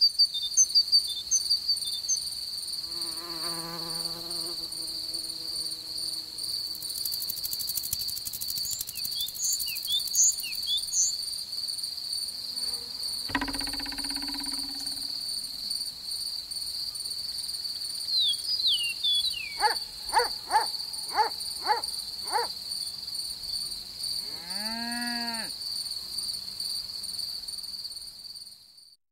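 Steady high-pitched cricket trill, with other insect buzzes and chirps over it: a wavering buzz a few seconds in, a cluster of short chirps, and later a run of quick pulses and a rising-then-falling call. The trill fades out just before the end.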